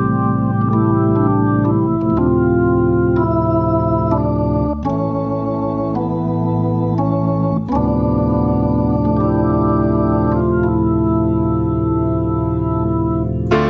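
Background music of sustained organ chords that change every few seconds.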